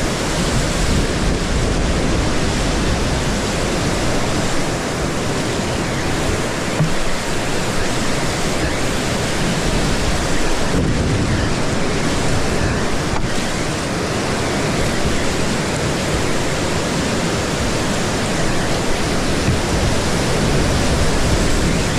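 Whitewater rapid rushing steadily around a kayak running through it.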